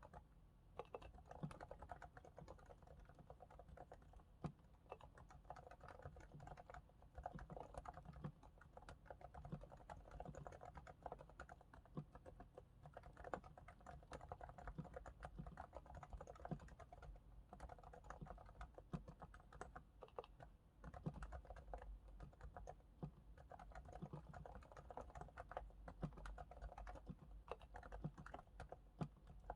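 Steady typing on a Realforce R2S keyboard with silent 45 g Topre electrostatic capacitive switches, lubricated with Krytox 105 on the sliders and Krytox 205 on the stabilizers. The key strikes come as quiet, muffled clicks, several a second, with no pauses.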